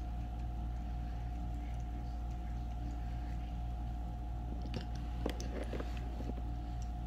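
Steady electrical hum with a constant high tone. About five seconds in, a short run of clicks and light knocks from something being handled.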